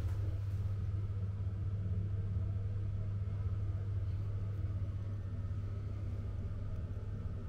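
A steady low rumble, most of its weight in a deep hum.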